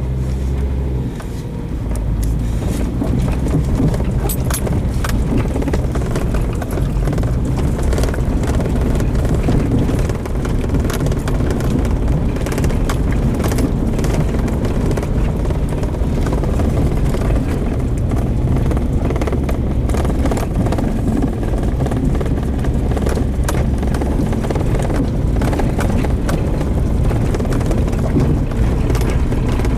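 Car driving steadily, with a continuous low engine and road rumble.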